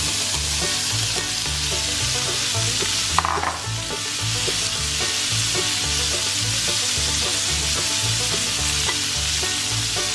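Corn kernels frying in melted butter in a pan, a steady, dense sizzle, with one brief knock about three seconds in. Background music with a repeating bass line runs underneath.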